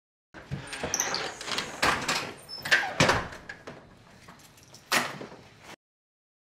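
A house front door and its lock being handled: a run of clicks, knocks and rattles, with one sharp click about five seconds in. The sound cuts off suddenly near the end.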